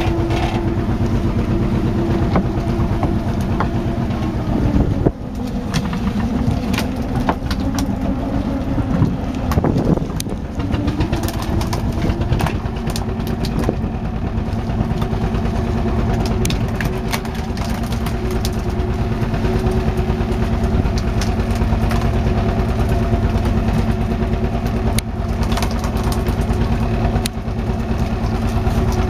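Fishing boat's engine running steadily. About five seconds in it drops in pitch and level, then climbs back over the next few seconds and runs steadily again. Scattered short clicks sound over it.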